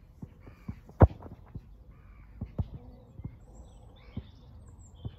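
A football kicked hard with a boot about a second in, making a single sharp thud that is the loudest sound. Lighter knocks are scattered around it.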